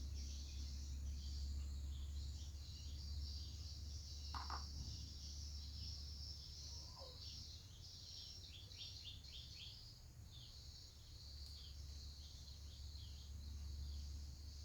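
Birds and insects chirping in the background, with a couple of clearer bird calls, one a short falling whistle, over a steady low hum.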